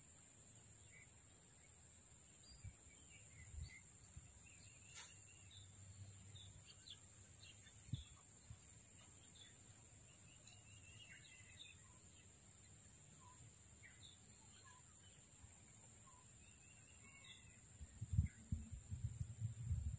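Quiet rural wetland ambience: faint scattered bird chirps over a steady high-pitched hiss, with low thuds and rumbles starting near the end.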